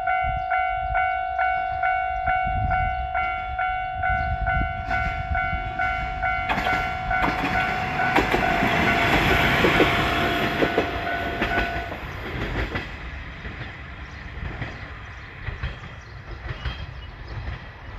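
Level-crossing warning bell ringing about three times a second as a Heisei Chikuho Railway diesel railcar passes, its wheels clacking over the rail joints. The train is loudest partway through, the bell stops about twelve seconds in, and the train's sound fades away.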